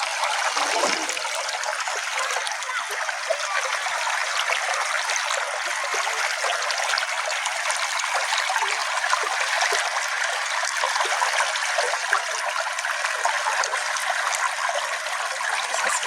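Small forest stream flowing steadily, a continuous trickle of water over its bed.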